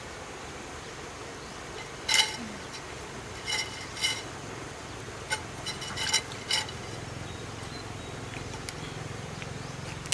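A series of sharp ringing clinks of hard objects knocking together, like dishes or utensils. The loudest is about two seconds in, and several more follow over the next four seconds.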